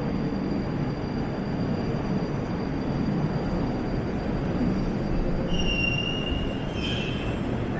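Moscow metro train running past the platform: a steady rumble, with a short high squeal from the wheels about five and a half seconds in and another brief one just after.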